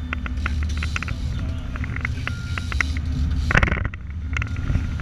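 Boat engine running steadily, with scattered sharp clicks over it and a brief loud rush of noise about three and a half seconds in.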